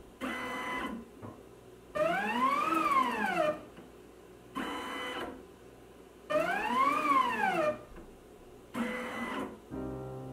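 Motorized XY camera positioning stage moving its carriage along its axes, with the drive motors whining. Two longer moves have a whine that rises and then falls in pitch as the carriage speeds up and slows down. They alternate with three shorter moves at a steady pitch, with quiet pauses between.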